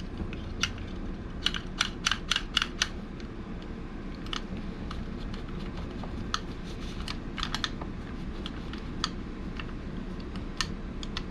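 Light, sharp clicks and taps of small hard parts being handled, with a quick run of about six about two seconds in and scattered single clicks after, over a steady low hum.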